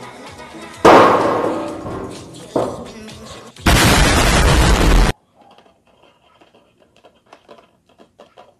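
Explosions, likely an edited-in effect: a sudden loud blast about a second in that dies away over two seconds, a sharp bang, then a loud explosion lasting about a second and a half that cuts off abruptly. Music plays briefly before the first blast, and only faint crackles follow the last one.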